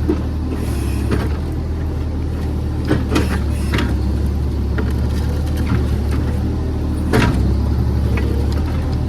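JCB JS30 Plus mini excavator's diesel engine running steadily under load while the bucket works against a root caught in stone, with a few sharp knocks and scrapes, the loudest about seven seconds in.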